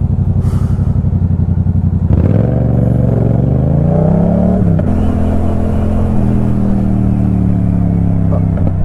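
Motorcycle engine running at low revs for about two seconds, then revving up as the bike accelerates away. The pitch drops sharply at a gear change a little past halfway, climbs again, then settles into a steady cruising note.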